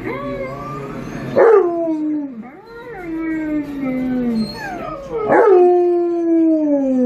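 Alaskan Malamute howling: three long howls, each sliding down in pitch, the loudest starting suddenly about a second and a half in and again about five seconds in.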